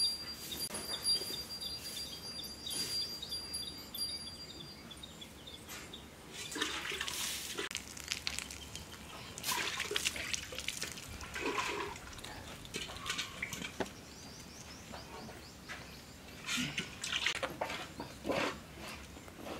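Cow being hand-milked into a steel pot: milk squirts hitting the pot in quick runs of spurts, in three spells with pauses between.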